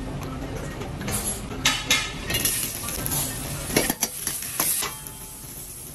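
Sliced onion, jalapeño and mushrooms sizzling in a hot oiled wok, starting about a second in. A metal ladle clanks and scrapes against the wok several times.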